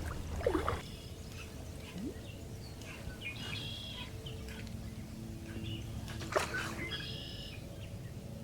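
Birds chirping in short bursts, one group about three and a half seconds in and another about seven seconds in, over quiet outdoor background with a couple of faint knocks.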